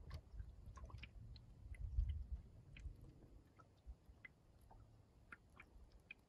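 Faint, irregular lapping and ticking of small lake ripples against a light Hornbeck canoe hull, over a low, uneven wind rumble.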